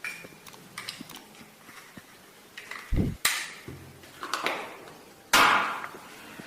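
Handling sounds of unpacking camera-lens accessories: scattered clicks and light knocks, a dull thump about three seconds in, and two short bursts of rustling packaging, the louder one near the end.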